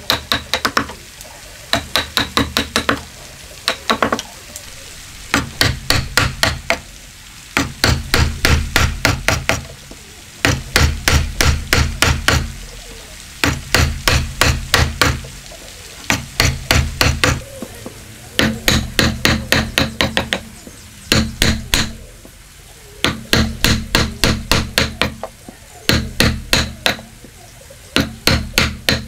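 A wood chisel driven into timber by rapid blows on its handle, chopping out a mortise. The blows come in quick runs of a second or two with short pauses between them.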